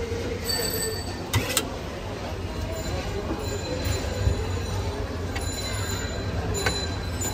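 Steady street background rumble, with a few sharp clicks about a second and a half in and again near the end, as ripe papaya is cut with a knife into a plastic blender jar.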